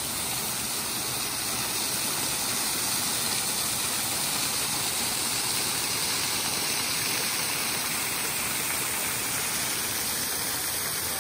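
Small waterfall splashing steadily as it pours over a rock ledge into a rocky creek bed.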